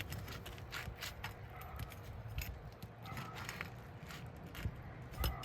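Roofing snake prying under an asphalt shingle to break its sealant strip: irregular scraping and crackling with sharp clicks, and a louder knock near the end.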